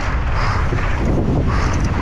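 Heavy wind noise buffeting a GoPro action camera's microphone on a mountain bike moving fast downhill, with a regular puff of sound about once a second.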